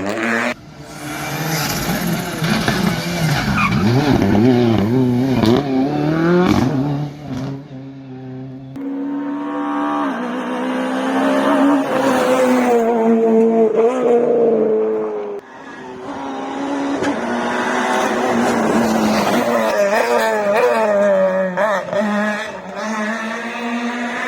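Rally car engines at high revs, pitch rising and falling over and over with gear changes and lifts off the throttle, with some tyre squeal. The engine sound cuts out sharply three times, about half a second in, around seven seconds and around fifteen seconds.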